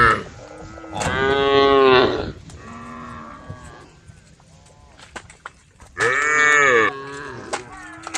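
Cows mooing: a loud, drawn-out moo about a second in, a shorter, fainter one near three seconds, and another loud moo about six seconds in.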